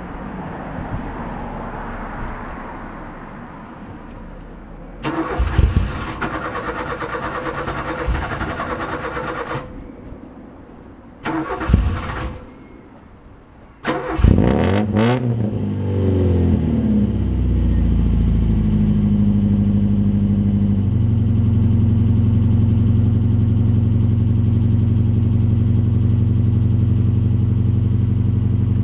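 Cold hard start of a Mk2 Ford Fiesta's 1.1 crossflow OHV petrol engine after a week sitting in the cold: the starter cranks for about five seconds without catching, cranks briefly again, then on a third try the engine fires, runs unevenly for a few seconds and settles into a steady idle.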